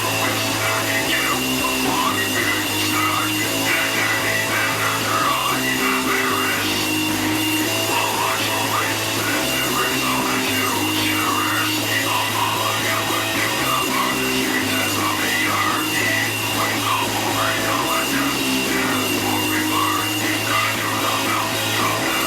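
Black metal music: a dense, unbroken wash of sound over low held notes that move to a new pitch every second or two.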